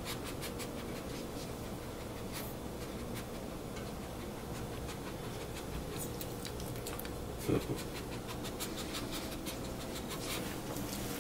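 Senior chihuahua licking and nosing a plate, with faint scattered licking clicks and light panting. There is one short, louder low sound about seven and a half seconds in.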